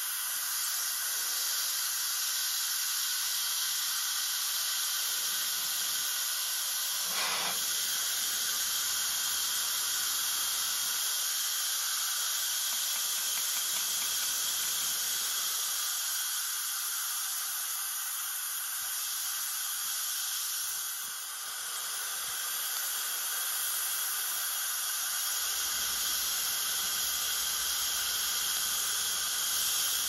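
Air hissing steadily out of a logging cart tire through the open valve stem, its valve core unscrewed, as the tire deflates.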